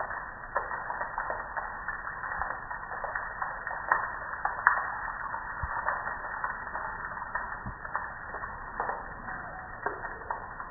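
Water splashing down onto a soapy gas grill and the wet concrete under it: a steady spatter of many small ticks.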